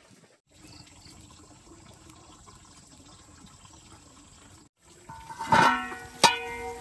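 Large aluminium cooking pot and lid clanking: several loud metal knocks about five seconds in, each ringing on, over a steady low hiss.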